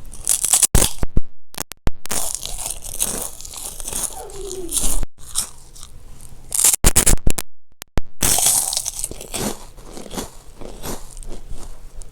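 Close-miked drinking of water: wet mouth sounds, sips and swallows. The sound cuts abruptly to silence twice, about a second in and again about seven seconds in.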